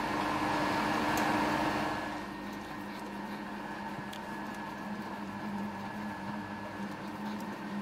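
Colchester Master 2500 lathe running with a steady hum while an 8 mm chucking reamer is fed into an aluminium part. The tone shifts and drops a little about two seconds in.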